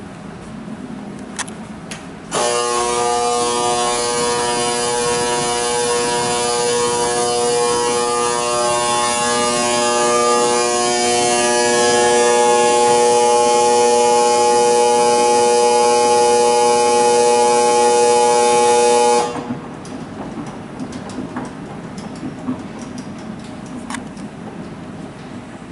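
Escalator wrong-way prevention buzzer sounding: a loud, steady electronic buzz at one pitch. It starts abruptly about two seconds in and cuts off suddenly some 17 seconds later. It is the alarm set off by entering a down-only escalator from the bottom.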